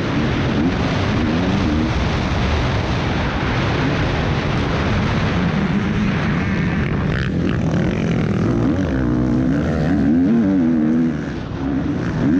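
Onboard sound of an MX2 motocross bike's engine at race pace, revving up and falling back again and again as the rider works the throttle through the turns. The throttle shuts briefly near the end, with wind rush on the helmet-mounted microphone.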